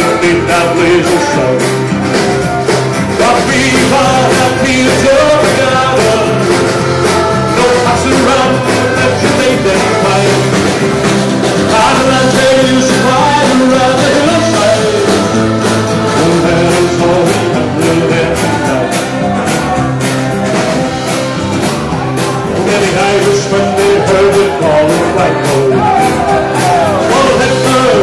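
Live band playing a folk ballad, with guitar and a sung or played melody over a steady rhythm.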